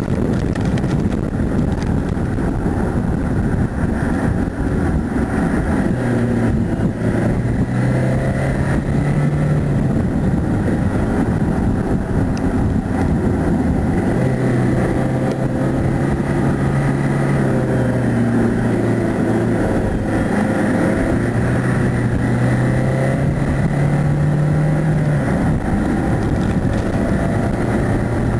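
Car engine pulling hard uphill with heavy road and wind noise. Its drone steps up and down in pitch several times as it accelerates.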